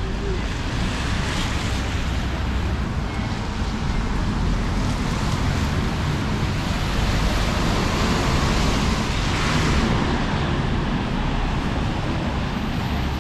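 Steady hiss of rain on a city street, mixed with tyre and traffic noise on wet pavement. The hiss swells and brightens briefly about nine to ten seconds in, like a vehicle passing on the wet road.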